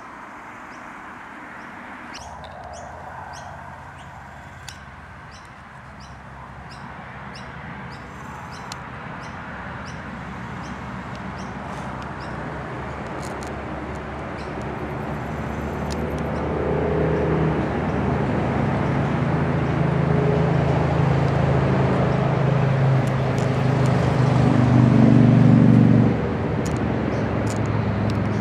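A motor vehicle's engine running with a low hum, growing steadily louder for some twenty seconds and then dropping off sharply near the end. Short high bird chirps come through during the first half.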